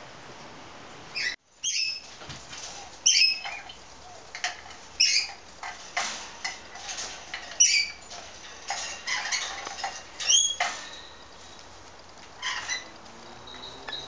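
Galahs (rose-breasted cockatoos) giving a dozen or so short, squeaky calls while one mounts the other to mate, several calls rising sharply in pitch, with light scratching and clicking between them.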